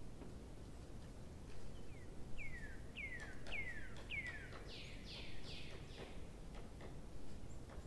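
A bird calling: a quick run of about five whistled notes, each sliding downward, then three harsher downward notes. A few faint clicks sit in the background.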